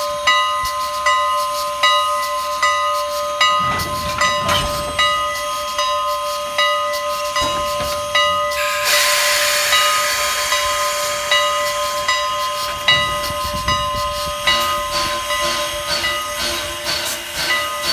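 A bell ringing steadily, struck about every half second, beside a steam locomotive. About halfway through, a loud hiss of steam comes in and slowly fades, and a second, lower-pitched ringing joins for the last few seconds.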